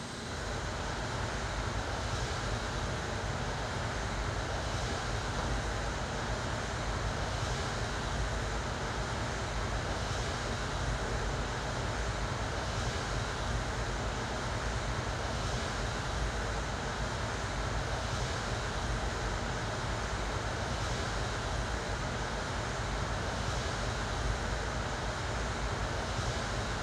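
Steady rushing noise with a strong deep rumble, like wind or surf, from the installation's sound; it swells in at the start and eases off near the end.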